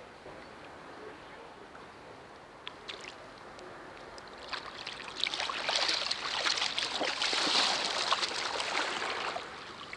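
Water splashing and sloshing with sharp drips, starting about four and a half seconds in and lasting about five seconds, over a faint steady trickle of water.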